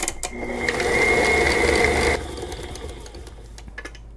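Tilt-head stand mixer running for about two seconds, its motor whirring with a steady whine as the beater creams butter and sugar, then switched off abruptly. A few small clicks follow.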